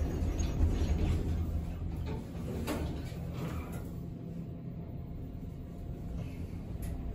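Schindler passenger elevator doors sliding shut, over a low steady hum inside the car that drops away about four seconds in.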